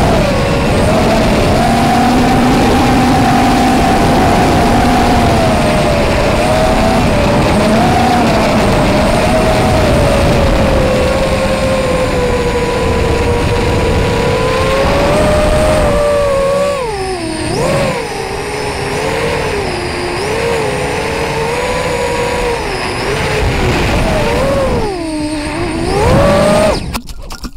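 FPV racing quadcopter's brushless motors and propellers whining in flight, heard from the onboard camera. The pitch holds fairly steady at first, then swings up and down quickly with the throttle from about halfway, rises near the end and cuts off suddenly as the quad comes down into the grass.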